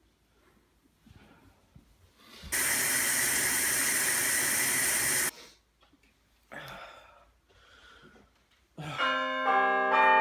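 A loud, even hiss that starts suddenly, lasts about three seconds and cuts off just as suddenly. Near the end, many bell-like ringing tones at several pitches start up together and keep ringing.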